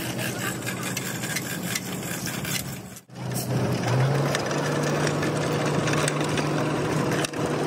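A machine hums steadily with scattered clicks and knocks. The sound drops out suddenly about three seconds in, then comes back louder with the hum slightly higher.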